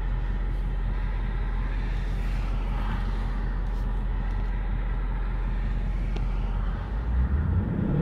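2020 Ford Mustang GT's 5.0-litre V8 idling steadily with its active exhaust set to Quiet mode, heard from inside the cabin with the driver's window open; near the end the engine starts to rev and grows louder.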